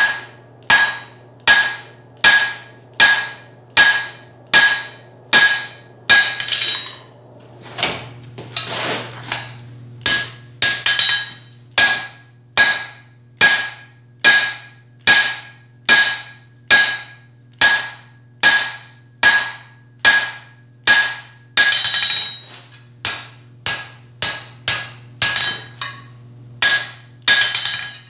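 A hand hammer strikes hot steel on an anvil in a steady run of blows, about three every two seconds, each with a bright ring; there is a short pause about seven seconds in. The blows are forging a tong blank, thinning out the too-fat section at the third notch.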